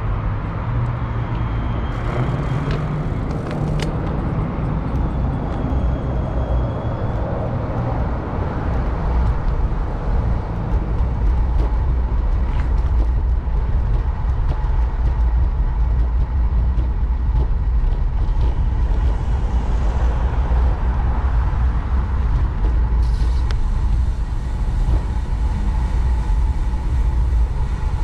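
Wind buffeting the microphone of a bicycle-mounted camera, mixed with road and street traffic noise. A low steady hum sits under it for the first several seconds while the bike waits at the intersection, and the rumble grows louder about nine seconds in as the bike gets moving.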